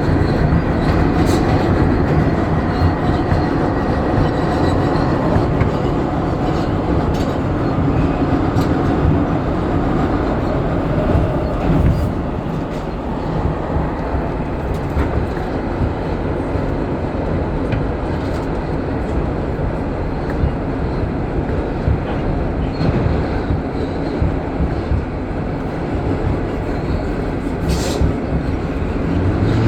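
Interior of an R160 subway car running at speed with its HVAC off: steady wheel-on-rail rumble with scattered clicks over rail joints. A faint high whine stops about five seconds in.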